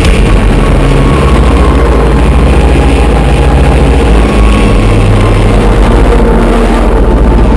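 Honda CBR sportbike's inline-four engine running loud and steady on a top-speed run, a continuous low drone whose tone shifts about a second in and again around four seconds in.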